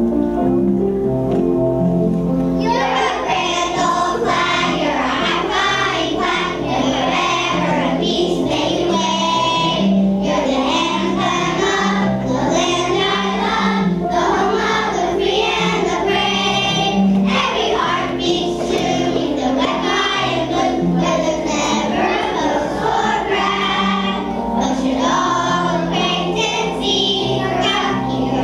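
Young children singing a song together as a group over an instrumental accompaniment. The accompaniment plays alone for the first few seconds before the voices come in.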